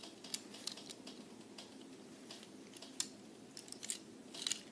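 Faint, scattered clicks and taps of fingers handling a small die-cast model stock car, a little louder near the end.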